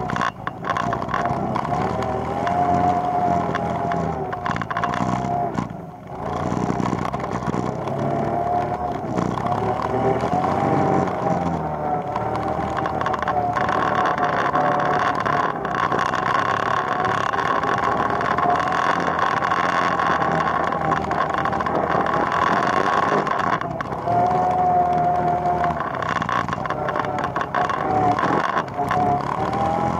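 ATV engine running under way, its pitch rising and falling with the throttle. It drops off briefly about six seconds in, then picks back up.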